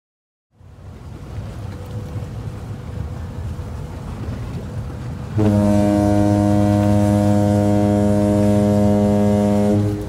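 A ferry's horn sounding one long, steady low blast of about four and a half seconds, starting about halfway through, over a low rumble of engines and water.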